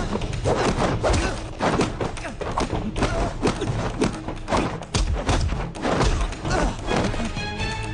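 Film fight sound effects for hand-to-hand martial arts: a rapid series of punch and kick thuds mixed with swishing whooshes of moving limbs and clothing.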